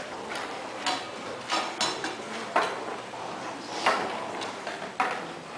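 Scattered knocks and light metallic clinks of a drummer settling in at a drum kit and handling his sheet music and stand hardware before playing. About six sharp, irregular hits, with no playing yet.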